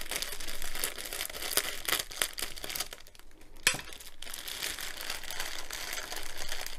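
Scissors snipping a clear plastic bag open, then the bag and the small plastic drill packets inside crinkling as they are handled, with a sharp click about three and a half seconds in.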